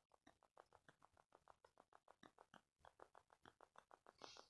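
Near silence, with faint, even ticking about seven times a second and a brief soft rustle near the end.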